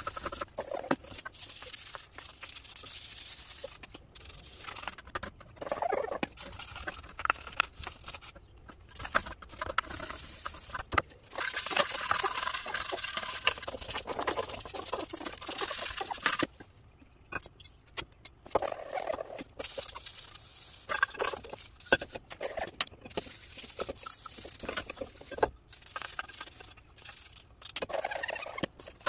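Stiff plastic-bristle brush scrubbing a degreaser-wet front brake caliper and wheel hub in quick, irregular scratching strokes, some of them squeaking.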